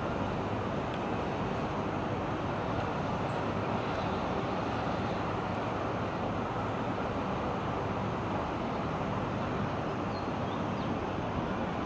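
Steady, even hum of distant city road traffic blended together, heard from high above the streets.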